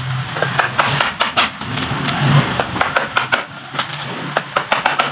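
Claw hammer striking a metal fitting on a table saw in quick, irregular taps, about three or four a second, over a low steady hum.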